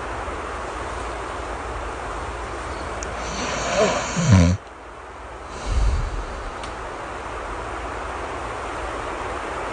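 Steady rain ambience with one snore in the middle: a low snore that builds for about a second and a half and stops abruptly, then a shorter, softer low snore about a second later.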